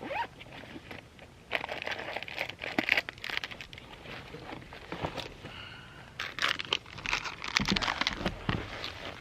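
Two bouts of irregular crinkling and rustling with scattered sharp clicks, the first about a second and a half in and the second after the middle.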